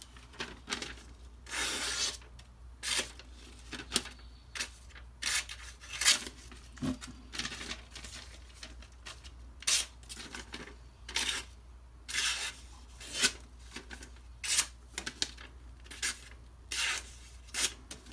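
Knife edge of a freshly stropped Microtech Socom Elite (CTS-204P steel) slicing through paper in short strokes, about two a second, as it carves curves. The cuts go through smoothly, the sign of a sharp, freshly stropped edge.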